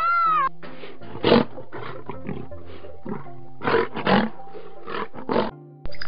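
Greater one-horned rhinoceros giving a string of about a dozen rough, noisy calls, loudest a little over a second in and around four seconds in, over background music. The calls stop shortly before the end.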